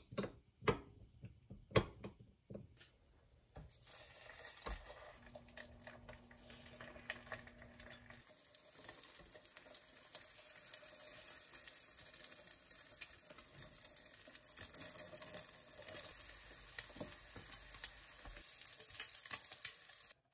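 A whisk clicks against a glass mug as eggs are beaten. About four seconds in, the beaten egg hits a hot nonstick pan and sizzles steadily as it fries into a rolled omelette, with occasional scrapes and taps of the spatulas.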